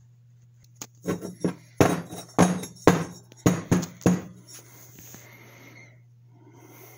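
A quick series of about ten sharp knocks over some three seconds as a GX200-clone aluminium cylinder head and a screwdriver are handled on a workbench, over a faint steady low hum.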